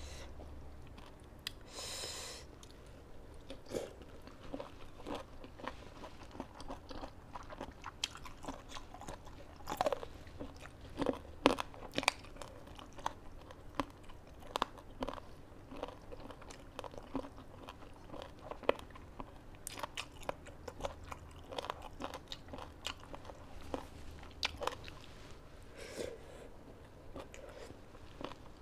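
A person eating tam sua, a pounded spicy salad with rice noodles and raw vegetables, by hand: close chewing with irregular crunches and small wet clicks of the mouth, a few crunches sharper than the rest.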